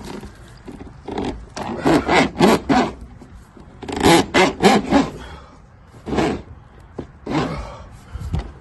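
Repeated short scraping strokes, in quick runs of three or four with pauses between.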